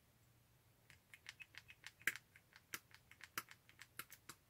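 Faint, quick, irregular clicks and ticks of hands picking at and opening the small packaging of an eye gel, starting about a second in.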